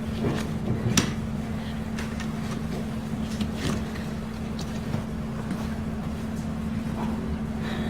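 Steady low hum of room background, with a few light clicks and knocks of handling.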